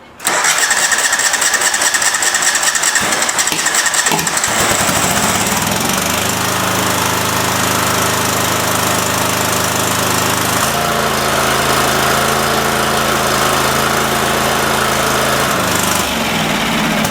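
Cub Cadet 3225 garden tractor's 22 hp Kohler engine starting with a loud rush, then running steadily. Its note shifts about ten seconds in and again near the end, with the PTO engaged and the mower blades spinning.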